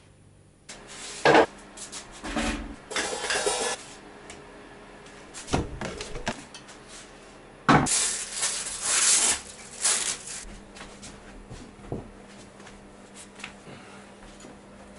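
Handling noise of a drum kit being shifted: scattered knocks and clatter of drums and hardware, with stretches of rustling as a rug is spread on the floor, over a low steady hum.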